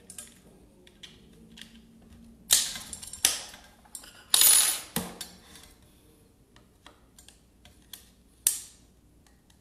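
Hard clicks and knocks of the Bosch GKS 140 circular saw's housing parts being pushed together by hand over the spring-loaded carbon brushes: four sharp clacks, the loudest and longest about four and a half seconds in, with small ticks in between.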